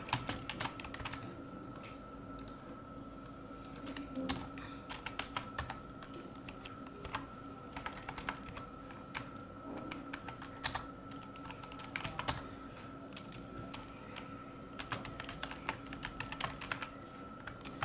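Typing on a computer keyboard: irregular runs of keystroke clicks with short pauses between them. A faint steady hum sits underneath.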